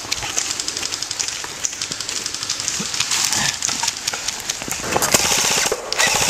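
Airsoft electric guns firing in bursts of rapid clicking shots, coming thicker and louder about five seconds in.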